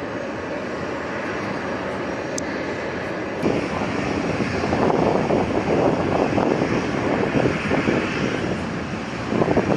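Steady jet aircraft engine noise that swells and grows louder and more buffeting about three and a half seconds in.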